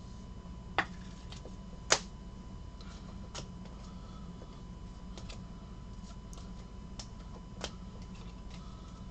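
Sharp plastic clicks and taps from trading cards and a rigid plastic toploader being handled: two loud clacks in the first two seconds, then a few lighter ticks spread out, over a steady background hum.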